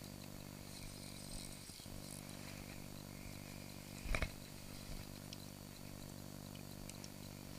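A steady low, machine-like hum, with one sharp knock about four seconds in and a few faint ticks.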